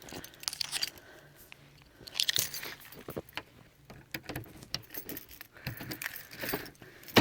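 Keys jangling in a hand with each step of someone walking through deep snow: irregular clinks and crunches about once a second, the loudest about two seconds in, and a sharp knock at the very end.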